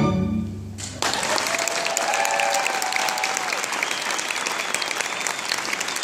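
A string orchestra's final chord fades out. About a second in, the audience bursts into steady applause.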